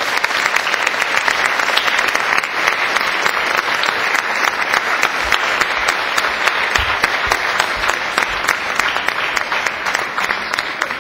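Audience applauding, a dense, steady clapping that begins to ease off near the end.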